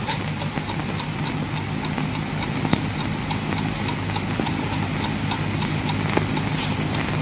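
Steady hiss and low hum of an old optical film soundtrack, with faint crackling ticks and two sharper clicks a few seconds apart.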